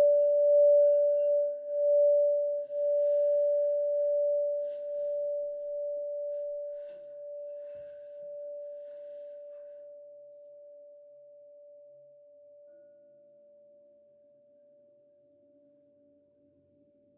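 A singing bowl's single tone ringing out and slowly dying away. It wavers at first, then steadies as it fades to almost nothing. Faint other instrument notes begin near the end.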